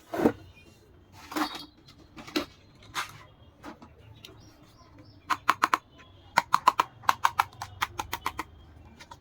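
Toy dollhouse pieces being handled: scattered knocks and rustles, then two quick runs of sharp clicks or taps, about six a second, over the second half.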